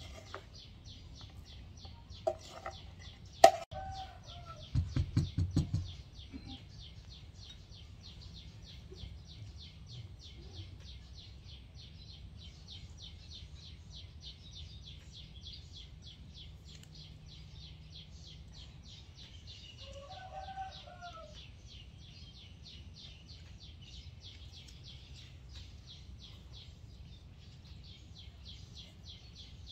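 A metal spoon clicks against the moka pot's metal filter basket as ground coffee is spooned in, followed by a quick run of soft low knocks a little later. A bird calls briefly twice, and a fast, steady high chirping continues in the background.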